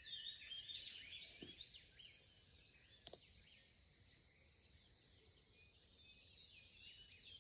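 Near silence with faint outdoor sounds: birds chirping in the first two seconds and again near the end, over a steady high insect drone, with a light knock about three seconds in.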